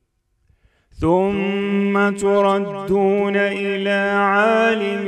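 A man's voice reciting the Quran in melodic tajwid style: after a short pause, a long held, ornamented note begins about a second in and carries on, with small turns in pitch.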